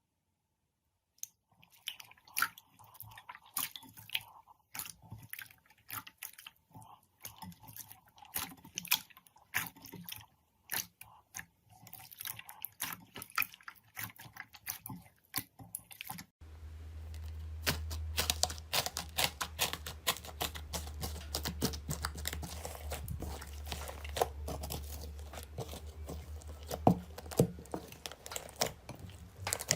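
Slime being squeezed and worked by hand, giving a run of sticky clicks and crackling pops that starts a little over a second in. Just past halfway it changes abruptly to denser, steadier crackling over a low steady hum.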